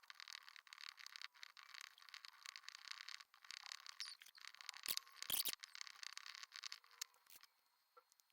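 Faint scraping and rustling of small metal machine parts being handled and worked by hand, with a few sharp clicks about five seconds in; it dies away near the end.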